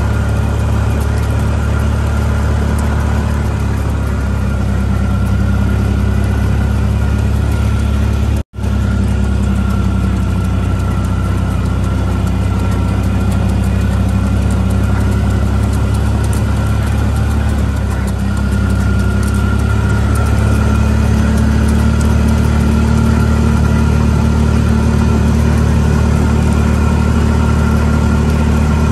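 A motor vehicle's engine running steadily at low speed, a deep even hum. It drops out for an instant about eight seconds in.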